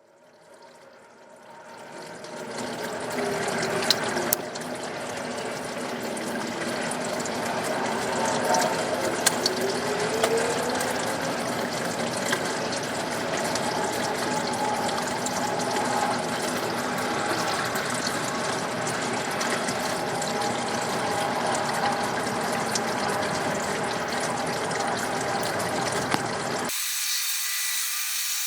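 Whelen Vortex R4 rotating warning siren sounding its steady alert tone close up, building from nothing over the first few seconds and then holding a continuous blare. About two seconds before the end the sound changes abruptly and its lower part cuts out.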